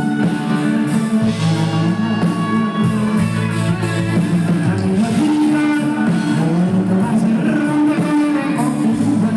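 Live band music with guitar, playing continuously at a steady level.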